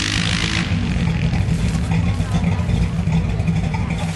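Off-road truck engine running steadily and loudly, with a hiss over it that stops about half a second in.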